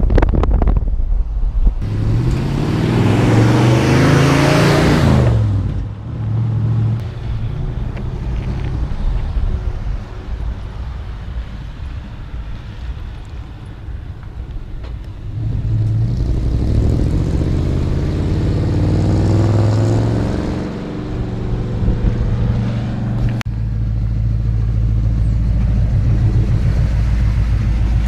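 A 1966 Ford F250's 390 V8 engine accelerating, its pitch rising and then dropping off, then the truck driving past with the engine note rising and falling away. It cuts suddenly near the end to a steady low engine rumble.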